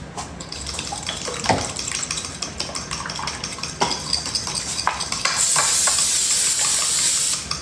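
A utensil stirring in a bowl, clicking and scraping against its sides, with kitchen clatter. About five seconds in, a loud steady hiss starts and runs for about two seconds, then stops.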